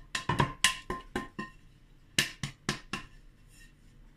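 Hands tapping a fluted glass baking dish to spread a dusting of flour over its oiled inside. A run of quick taps, each with a short glassy ring, comes first, then a second run after a pause.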